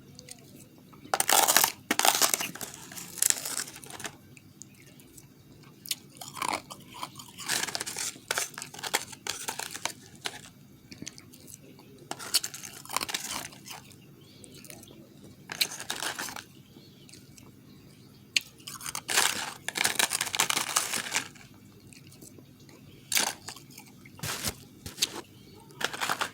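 Close-up crunching and chewing of refrozen powdery ice, in bursts every second or two with short pauses between bites.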